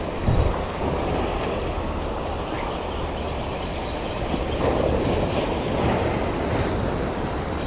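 Steady rush of sea waves surging and washing against the shore below, with wind rumbling on the microphone.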